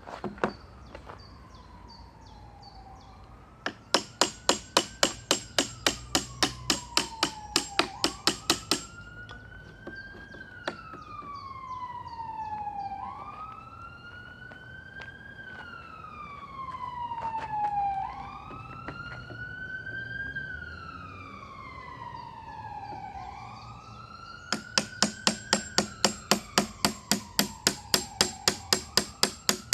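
Two runs of rapid claw-hammer blows on a wooden pallet, about four a second, each lasting about five seconds: one a few seconds in, the other near the end. Behind them an emergency-vehicle siren wails, rising quickly and falling slowly in a cycle of about five seconds.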